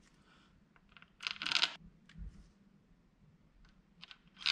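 Small metal parts and hand tools being handled at an engine's oil pump cover during bolt work: a cluster of sharp clinks and a scrape a little over a second in, a few faint ticks later, and one more clink near the end.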